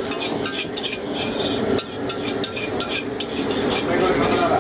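A metal ladle scraping and tapping against a large wok in repeated stirring strokes, while shredded cabbage, capsicum and chicken sizzle steadily in the hot oil.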